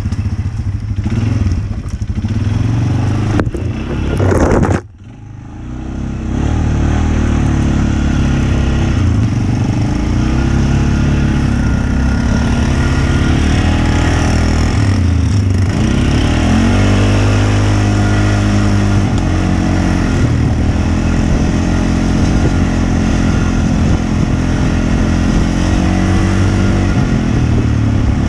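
Off-road vehicle engine running, its pitch rising and falling as it revs. The sound drops out abruptly about five seconds in, then comes back.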